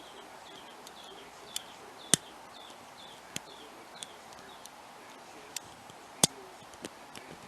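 Scattered sharp metallic clicks and taps of a lock pick and tension wrench working the pins of a pin-tumbler lock held in hand, the two loudest about two seconds in and about six seconds in.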